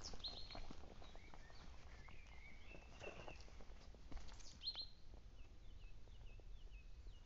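Wild birds calling: a few short chirps and whistles, then a run of short falling notes repeated several times in the second half. Faint footsteps on a dry, leaf-strewn dirt path sound underneath.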